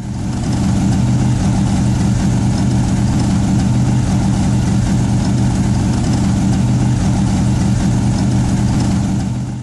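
A car engine idling steadily, fading in over the first second and out near the end.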